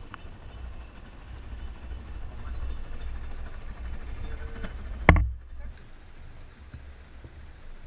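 Low, steady rumble aboard a fishing boat under way, with one sharp knock about five seconds in.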